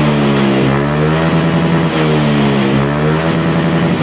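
Honda Vario 125 scooter's single-cylinder engine running through an aftermarket SKR racing exhaust, revved up and down several times so the exhaust note rises and falls.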